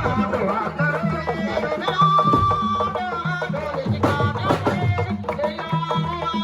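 Music with drums and a repeating bass line, a melody weaving over it.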